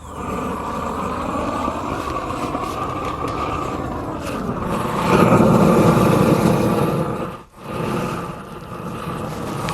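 Tractor diesel engine running steadily, likely the John Deere 4040. It rises in pitch and gets louder about five seconds in, then dips for a moment near the end.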